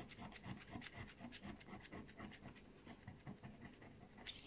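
A coin scratching the coating off a scratch-off lottery ticket, in quick, faint, repeated strokes.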